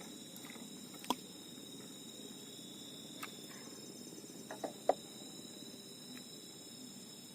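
Steady chorus of night insects, several shrill tones held at different pitches, with a few short sharp clicks or taps: one about a second in, one near the middle and a close pair a little later.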